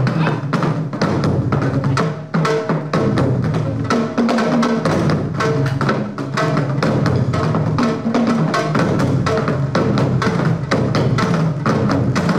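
Korean traditional drum ensemble playing a fast, dense rhythm, with a large daego bass drum struck with two wooden sticks among barrel drums (buk), a steady stream of sharp strokes with no pause.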